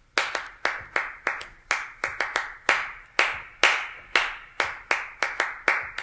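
Hand clapping that plays a rhythm of longer and shorter gaps rather than a steady beat: about three sharp claps a second, unevenly spaced.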